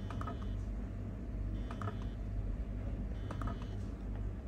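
Automatic mouse clicker's plunger pressing a computer mouse button: a short cluster of sharp clicks about every second and a half, three times, over a steady low hum.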